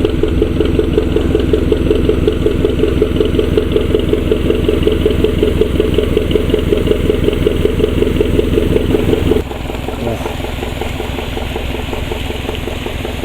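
Small boat engine running with a steady, fast putter, then throttled back to a quieter idle about nine and a half seconds in.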